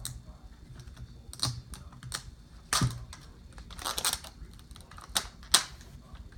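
Plastic toy packaging being handled and opened: irregular sharp clicks and knocks, with a brief crinkle about four seconds in.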